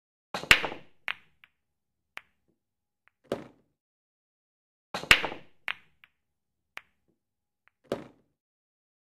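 Sound effect of short knocks and clacks over dead silence, in a repeating pattern: a louder clattering hit with a sharp click twice, each followed by a faint tick and then a duller knock.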